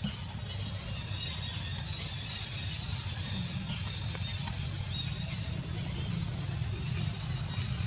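Steady low rumble of background noise, with a few faint high chirps.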